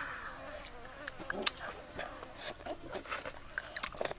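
A child chewing cooked mushroom with her mouth, wet lip-smacking and small irregular clicks, several a second.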